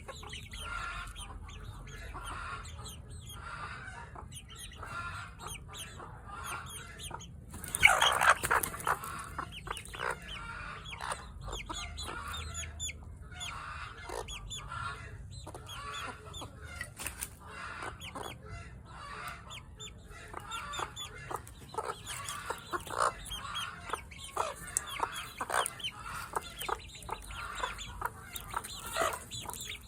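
Chickens clucking continuously in short repeated calls, with one louder squawking burst about eight seconds in.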